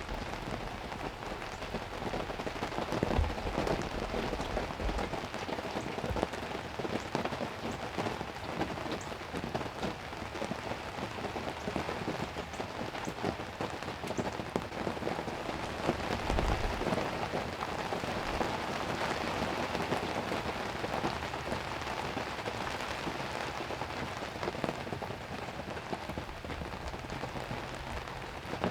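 Heavy rain falling steadily on a hunting ground blind, heard from inside it as a dense, even hiss, with a few dull low thumps about three to five seconds in and again around sixteen seconds.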